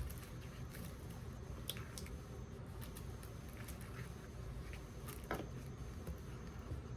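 A person chewing a mouthful of microwaved chicken Parmesan and rigatoni pasta, faint and wet, with a few brief clicks.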